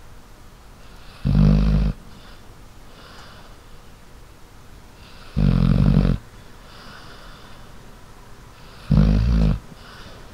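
A sleeping dog snoring: three snores about three and a half seconds apart, each under a second long, with a fainter breath between them.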